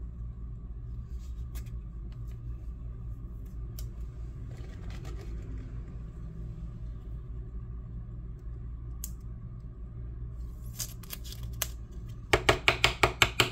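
Trading cards being handled: faint rustling and scattered clicks over a steady low hum, then near the end a quick run of about nine sharp clicks in just over a second.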